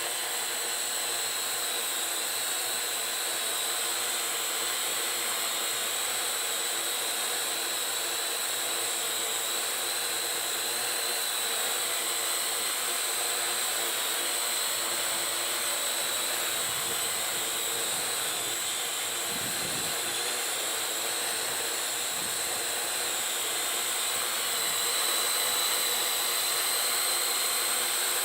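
Parrot AR.Drone 2.0 quadcopter in flight, its four electric motors and propellers whirring with a steady high whine; it gets a little louder near the end.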